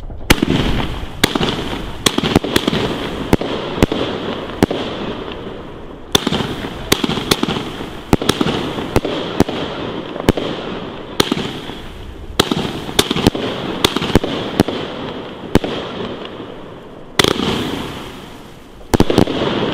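Funke 'Weissblinker Pink' consumer firework battery firing shot after shot, roughly one a second at uneven intervals, over a continuous crackling hiss from its white strobe stars. Near the end come two louder volleys, each trailing off in a fading hiss.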